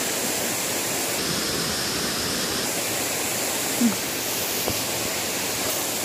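Steady rush of a waterfall and its shallow stream, an even hiss that does not let up.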